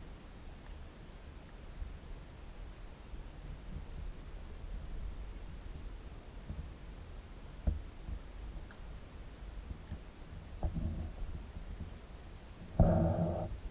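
Low, muffled rumble of water heard through an underwater camera's waterproof housing, with a faint high whine ticking at an even pace. A sharp knock comes past the middle, then a dull thump, and the loudest bump near the end.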